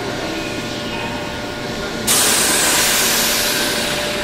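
Keihan electric train's underfloor equipment humming steadily, then about halfway through a sudden loud hiss of compressed air venting from the train's air system, fading slowly.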